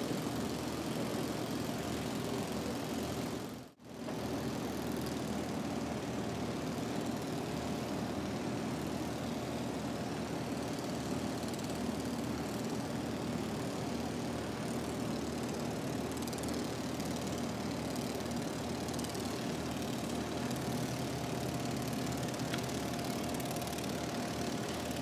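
Small 3D-printed flapping-wing ornithopter in flight: a steady buzzing drone from its motor and beating wings, broken off briefly about four seconds in.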